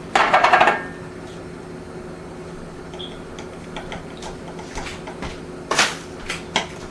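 A spoon clattering against the roasting pan for under a second, then scattered small clicks and knocks over a low steady hum, with a sharper knock near the end.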